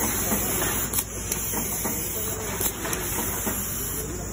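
Automatic cable tie gun tying wire-harness bundles: a few sharp clicks in two pairs as ties are fired, tensioned and cut, over a steady hiss.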